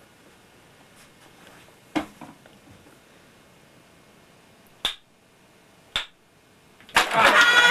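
Wooden Jenga blocks clicking a few times, with long gaps between, as a block is tapped and worked out of a tall tower; near the end the tower collapses in a loud clatter of wooden blocks onto a wooden table, and voices cry out.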